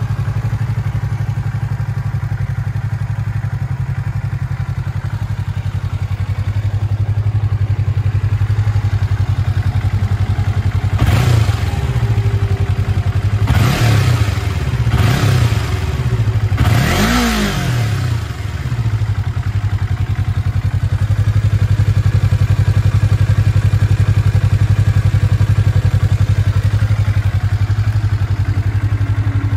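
A 2020 Yamaha R25's parallel-twin engine running through its stock exhaust. It idles steadily, is blipped about four times in quick succession near the middle, each rev rising and falling, then settles back to idle.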